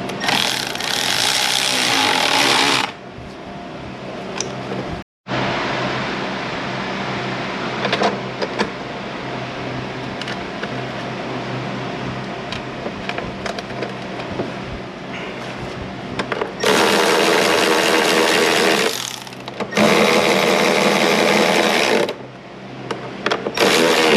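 A handheld power tool, most like a cordless ratchet or driver, runs in several short loud bursts: one at the start and two back-to-back bursts about two-thirds of the way through, over a steady background hum.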